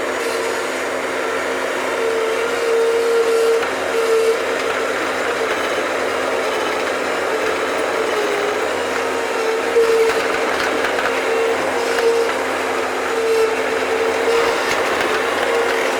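Bobcat machine's engine and hydraulics running steadily while it digs, with a steady whine and a few light clunks from the bucket.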